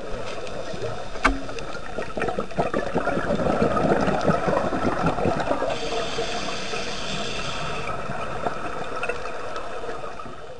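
Underwater sound of a scuba diver's regulator breathing, with exhaled bubbles gurgling and rushing past the microphone. A single sharp click comes about a second in, and the sound fades out near the end.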